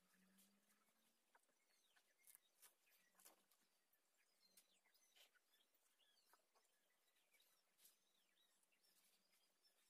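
Near silence: faint room tone with scattered faint bird chirps and light clicks.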